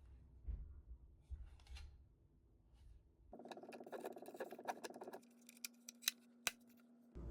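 Faint clicking and handling of a small plastic thermal label maker, busier from about three seconds in, with two sharp clicks near the end over a faint steady hum.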